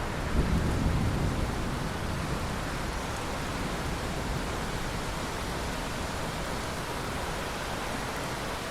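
Steady heavy rain hissing, with the tail of a low thunder rumble fading out over the first second or two.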